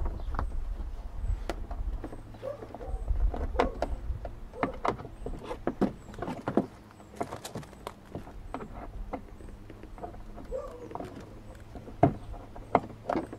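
Plastic front bumper cover of a Nissan 350Z being worked loose from the car by hand, giving irregular clicks, knocks and creaks of the plastic as it comes away from its clips and the wheel-arch lining.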